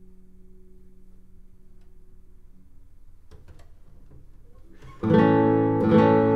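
Daryl Perry classical guitar: a chord rings on and dies away, a few faint finger and string noises follow, then about five seconds in a loud full strummed chord starts ringing chords again.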